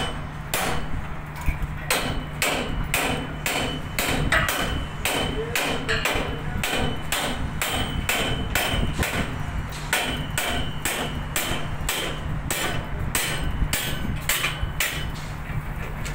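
Hammer blows on the steel of a tower crane's mast and collar frame, struck in a steady rhythm of about two to three a second, over a steady low hum.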